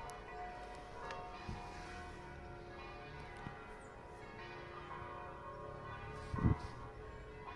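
Church bells pealing, their struck tones ringing on and overlapping, with fresh strikes every so often. A brief low thump stands out about six and a half seconds in.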